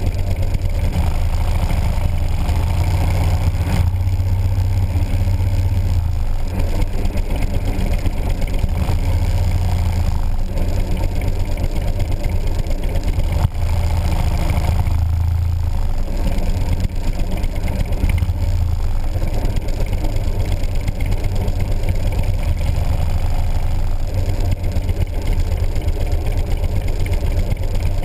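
Motorcycle engine running at low road speed, a steady, loud pulsing exhaust beat heard from the bike itself; the low beat drops briefly about halfway, as the throttle is eased.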